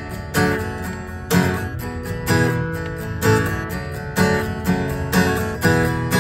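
Steel-string acoustic guitar strummed in a steady rhythm, a strong chord about once a second with lighter strums between, with no singing.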